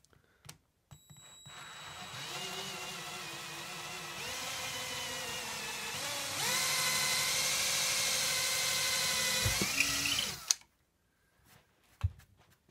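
Cordless drill/driver boring a dowel hole into a wooden chair rail. The motor whine starts about a second in, steps up in speed twice, runs steadily, rises briefly and stops abruptly near the end, followed by a few light knocks.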